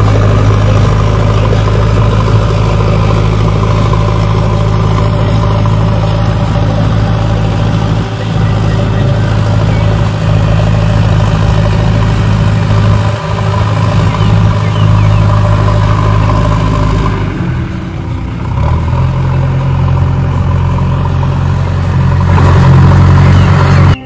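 A large engine idling steadily with a deep, even drone. The sound shifts about seventeen seconds in and grows a little louder near the end.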